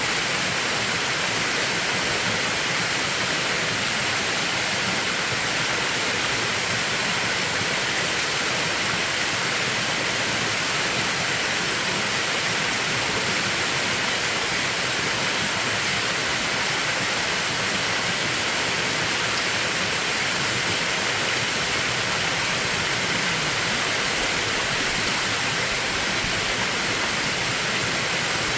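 Steady rush of water from a mountain stream.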